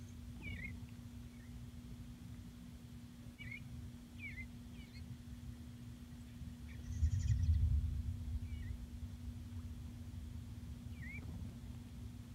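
Bluebirds giving short, falling chirps, one every second or two, over a steady low hum. About seven seconds in, a low rumble swells briefly and is the loudest sound.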